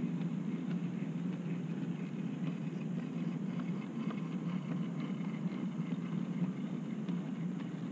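OO gauge model goods vans rolling past on the track: a steady rumble with faint light clicks from the wheels.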